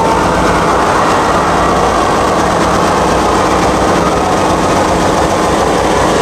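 A packed concert crowd cheering and yelling, a dense loud din over a steady low bass drone from the PA, overloading the microphone.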